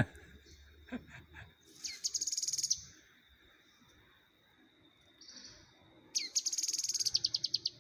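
A bird giving two rapid high trills, one about two seconds in and a longer one near the end that slows into separate notes, with a short chirp between them. A faint steady high whine runs underneath.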